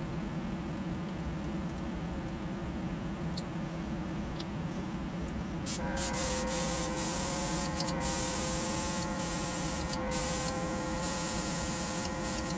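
Small airbrush compressor running with a steady hum. About six seconds in, an airbrush starts spraying paint, a hiss of air with a few short breaks as the trigger is let off.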